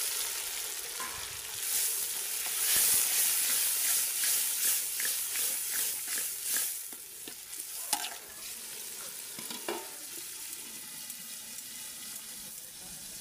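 Chopped tomatoes, capsicum and coriander sizzling in hot oil with browned onions, just added to the pan, while a spoon stirs them with knocks and scrapes about twice a second. The stirring stops after about seven seconds and the sizzle settles to a quieter steady hiss.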